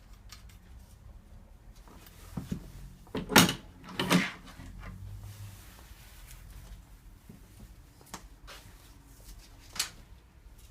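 Clattering knocks of a metal letterbox tool against a door and its letterbox, two loud knocks close together a few seconds in, followed by a few light clicks.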